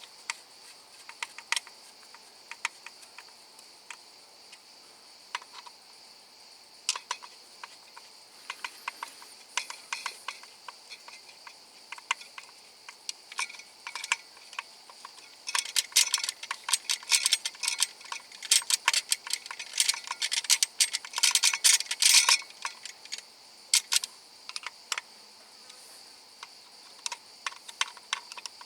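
Sharp clicks and light metallic taps of hand-tool work, scattered at first and then a fast run of clicking for several seconds in the middle, over a steady high-pitched hum.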